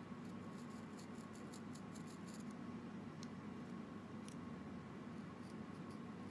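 Faint quick ticks of a carving knife cutting and trimming into a firm green mango, a run of them in the first couple of seconds, then two single ticks, over a steady low background hum.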